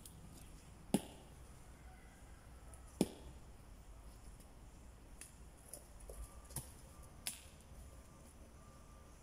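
A hand tool chopping into garden soil while digging planting holes for taro: two sharp strikes about two seconds apart, then several lighter knocks.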